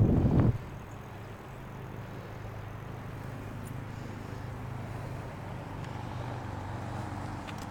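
Knobby mountain-bike tyres humming on an asphalt path, a steady low drone. A brief loud rush of noise right at the start, and a few faint ticks later on.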